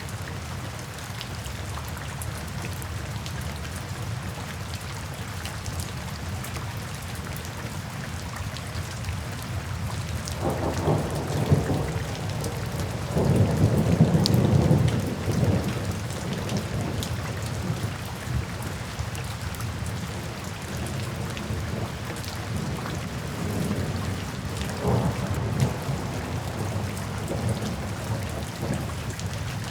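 Steady rain falling, with thunder rumbling in a long low swell about a third of the way in and a smaller rumble near the end.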